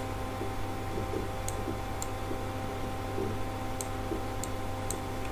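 A handful of light, irregularly spaced clicks over a steady low electrical hum.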